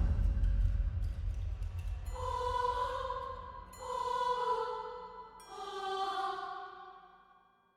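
Eerie horror sound effect: a deep low rumble fading away under three held, ringing pitched tones, each starting about a second and a half after the last and fading, before the sound dies out near the end.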